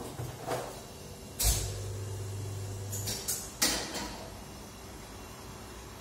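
Barista's equipment at a coffee bar: a sharp knock, then a low motor hum for about a second and a half, then three quick sharp clacks.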